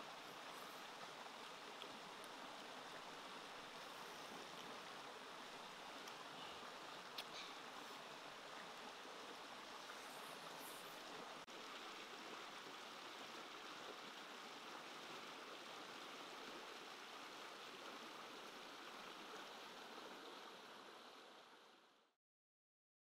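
A shallow rocky stream running over small rapids, a steady rush of water that fades out near the end.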